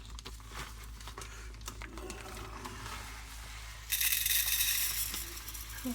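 Light clicks and rustling of handling food and utensils, then about four seconds in a sudden loud sizzle as chopped vegetables go into a hot pan, easing off after a second or so.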